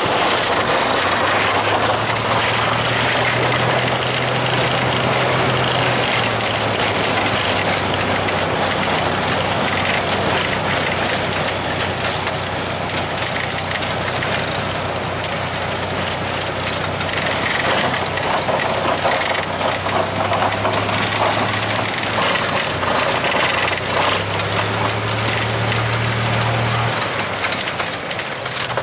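A vehicle driving on a gravel dirt road, heard from inside the cab: a steady rush of tyre and road noise under a low engine hum that rises and falls a few times and drops away about a second before the end.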